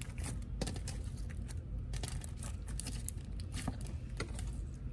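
Clear glossy slime with beads being squeezed and pressed by hand, giving off lots of small popping and clicking sounds in an irregular, rapid series.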